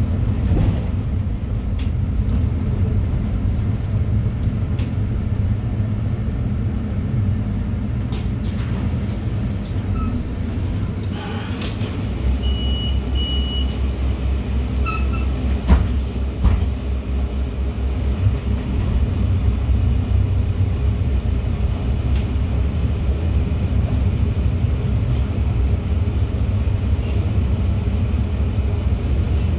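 City bus engine running, heard from inside the moving bus, with a steady low rumble of the cabin. About twelve seconds in the rumble deepens and strengthens as the engine takes load. Soon after, a short high beep sounds twice, and a few knocks and clicks rattle through the cabin.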